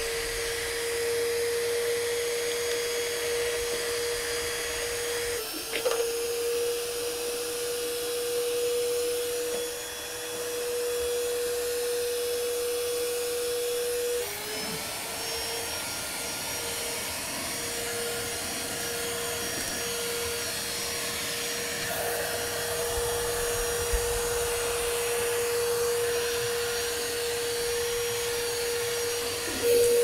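STIHL SEA 20 battery handheld vacuum running, its motor giving a steady whine at one pitch over a rush of air, with a short break about halfway through. A sharp knock about five seconds in.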